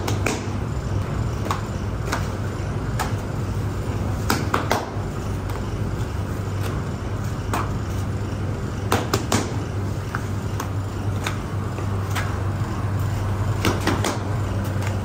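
Steady low hum of bakery machinery, with irregular sharp taps and slaps as hands pat and shape balls of bread dough on a floured table.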